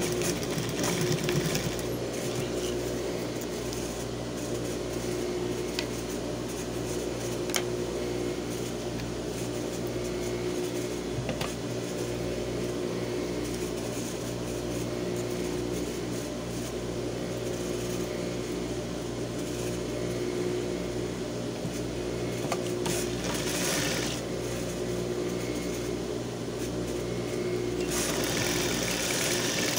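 Industrial straight-stitch sewing machine running as it stitches a zipper into a pair of trousers, with a steady motor hum and a few light clicks from the mechanism.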